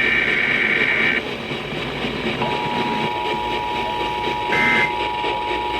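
Emergency Alert System tones: a burst of screechy SAME digital data for about a second, then the steady two-tone EAS attention signal comes in about two and a half seconds in and holds, with another short data burst over it near the end. Broadcast hiss runs underneath.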